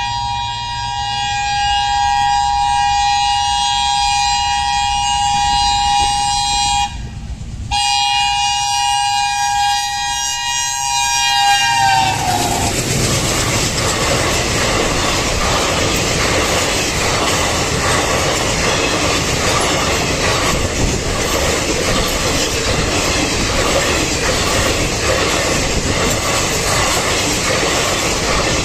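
Indian Railways locomotive horn sounding a long, near-continuous blast for a level crossing. It breaks once briefly about seven seconds in, and its pitch drops as the locomotive passes about twelve seconds in. The express train's coaches then rush by with a steady rumble and wheel clatter.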